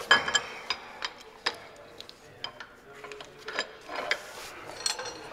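Scattered light metal clicks and clinks as a Jacobs engine brake housing and its rocker parts are handled and lifted off a Caterpillar 3406A cylinder head. The sharpest click, with a brief ring, comes right at the start.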